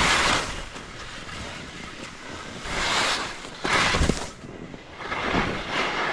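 Skis scraping and swishing over bumpy, packed snow through a series of mogul turns, the noise swelling several times, with wind rumbling on the microphone.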